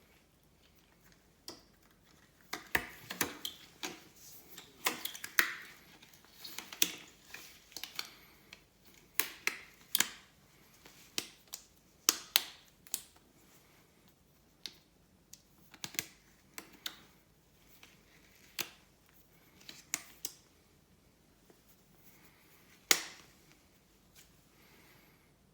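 Packaging being handled during an unboxing: irregular sharp clicks and taps with brief rustles. They are busiest in the first half, thin out after, and end with one last loud click near the end.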